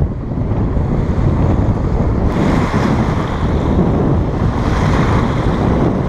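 Strong wind buffeting the microphone with a heavy rumble, over choppy lagoon water with small waves breaking and washing onto the shore. The hiss of the breaking water grows louder about two seconds in.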